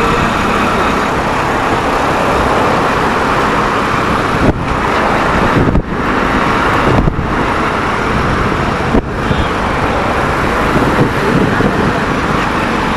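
Steady road traffic and vehicle noise as heard on the move in city traffic, loud and unbroken, with a few brief dips around the middle.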